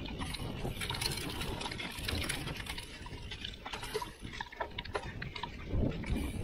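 Mountain bike rolling fast over a dry forest dirt trail: tyres crunching on dirt and fallen leaves, with many short clicks and rattles from the bike. A heavier low thud comes near the end.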